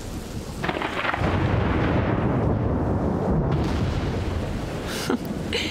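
Thunder rumbling, swelling about a second in and fading away near the end.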